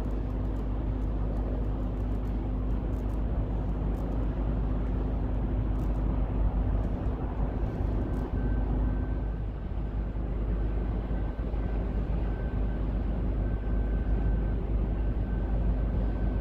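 The cruise ship Celebrity Apex passing close by: a steady deep rumble of its machinery, with a low hum that drops out about nine seconds in and a faint high whine that comes and goes in the second half.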